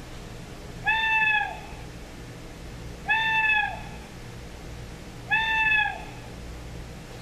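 Streamline BTZ746 animal-sound alarm clock sounding its owl alarm: a recorded owl call repeated three times, about two seconds apart, each call short and rising then falling in pitch.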